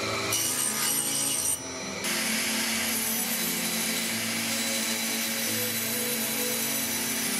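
Woodworking machines cutting wood. For the first second and a half a router mills a strip of wood, with a high whine. Then, after a short dip, a bandsaw runs steadily with a low hum as a thin wooden board is fed through its blade.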